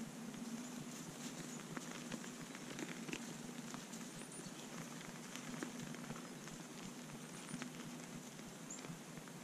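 Whitetail deer feeding and stepping in crusted snow: faint scattered crackles and clicks over a steady low hum, with a few faint high chirps.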